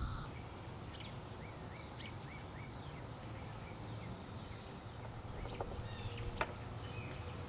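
Outdoor background with small birds chirping in short runs, and a couple of sharp clicks near the end, from a hand wire crimper closing on a wire terminal.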